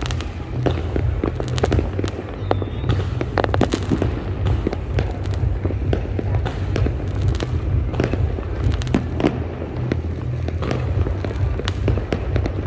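Aerial fireworks going off in a dense barrage: many sharp bangs and crackles in quick, irregular succession over a steady low rumble.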